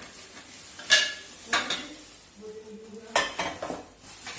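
Metal frame parts of a portable dining table and stool set clanking as they are handled: three sharp clanks with a brief metallic ring, about a second in, half a second later, and a little past three seconds.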